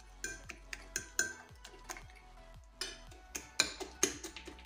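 A metal utensil clinking and scraping against a dish of mashed banana: a run of sharp, irregular clinks with short ringing, coming closer together and louder in the second half.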